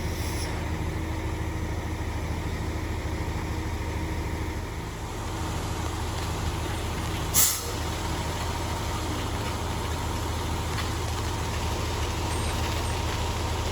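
Concrete truck's diesel engine running steadily, with a short loud air-brake hiss about seven seconds in.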